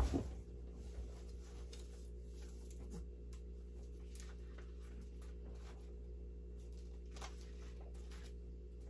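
A thump as a person drops down onto a couch, then a steady low hum with faint rustling and small handling sounds as a shipping package is opened and its contents pulled out.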